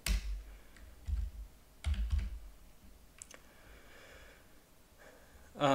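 A few sharp clicks of a computer keyboard, right at the start, about two seconds in and about three seconds in, with dull low thumps in between: keys pressed to advance the lecture slides.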